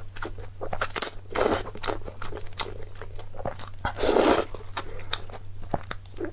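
Close-miked eating: a person chewing and crunching food, with many small clicks and two louder bites, about a second and a half in and about four seconds in. A steady low hum runs underneath.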